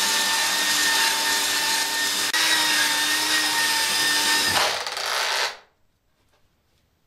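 Electric belt sander running against a wooden deck, sanding off dried glue filler, with a steady whine. There is a brief dip about two seconds in, then the motor winds down and stops a little after five seconds in.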